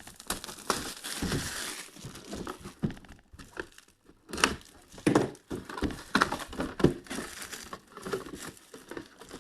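Packaging being crinkled and torn open by hand, with irregular rustles and sharp crackles: a TriStar mini-helmet box and its plastic wrap being unpacked.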